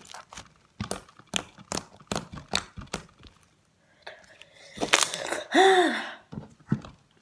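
Soft fluffy slime being squeezed and stretched by hand, giving a string of wet clicks and pops. About five seconds in there is a louder squelch with a short squeaky tone that rises and falls.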